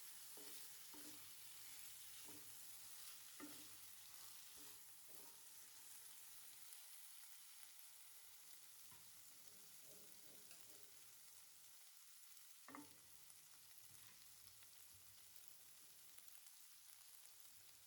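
Faint sizzling of potatoes frying in onion and spice paste in a pan, with a few short scrapes and knocks of a spoon stirring them.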